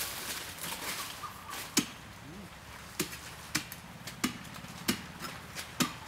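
A string of sharp knocks, about one every two-thirds of a second, with a faint low call that rises and falls about two seconds in.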